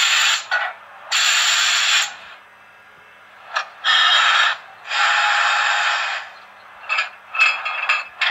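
Coupling and uncoupling sound effect from the Märklin Re 4/4 II model locomotive's onboard sound decoder, played through its small loudspeaker: a series of noisy bursts, some about a second long, with short sharp clicks between them.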